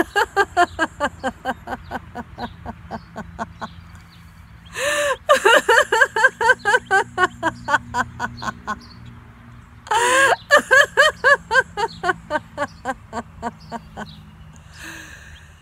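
A woman laughing heartily in laughter-yoga style: three long bouts of rapid 'ha-ha-ha' laughter, the second and third each opening with a high rising whoop about five and ten seconds in, each trailing off.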